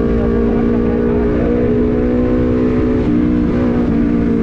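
Sport motorcycle with an aftermarket prototype racing exhaust, running steadily at cruising speed under light throttle as the bike gains a little speed, with road and wind noise. The engine note shifts slightly about three seconds in.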